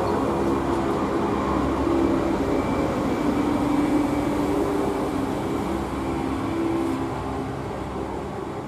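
London Northwestern Railway Class 350 Desiro electric multiple unit running past on the near track: steady wheel-on-rail noise with a low hum of motor tones. It fades near the end as the last vehicle passes and the train draws away.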